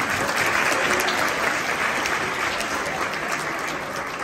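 Audience applauding, a dense patter of many hands clapping that is fullest in the first half and slowly eases off toward the end.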